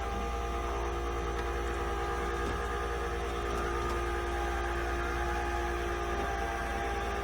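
Flatbed tow truck with its hydraulics engaged: a steady low engine drone under an even, unchanging whining hum.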